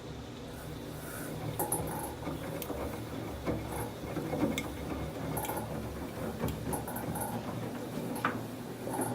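Samsung WF1124 front-loading washing machine with its drum turning: a steady low hum under irregular knocks, clicks and short scraping noises. This is the abnormal noise from the drum's rotation.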